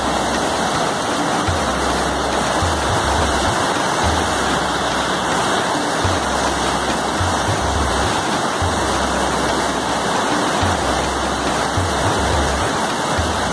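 Large waterfall cascading over broad sloping rock slabs: a steady, unbroken rush of white water.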